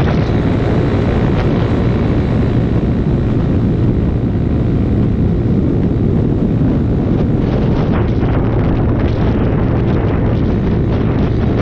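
Small mini-bike engines running during a ride, with heavy wind rumble on the microphone.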